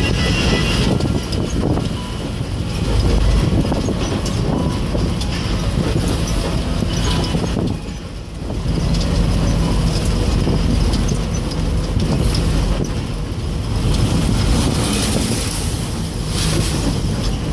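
Inside a moving bus with its door open: engine running under loud road and wind noise, with frequent small rattles and knocks.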